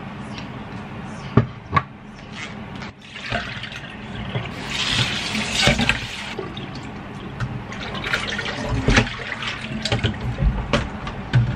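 Kitchen tap water running onto sliced spring onions in a plastic colander in a stainless-steel sink, loudest for a few seconds midway. Scattered knocks and clatter as a plate, bowl and colander are handled.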